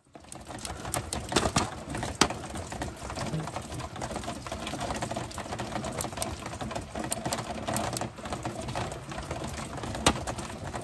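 Steady rain falling, an even patter with many scattered sharper drop clicks.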